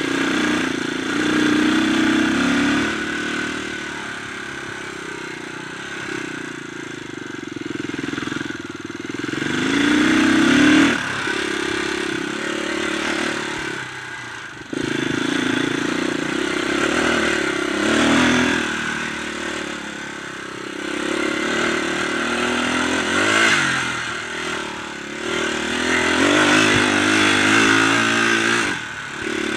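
Dirt bike engine being ridden hard on a trail, the revs rising and falling again and again as the throttle is opened and closed, with a sudden drop and jump about halfway through.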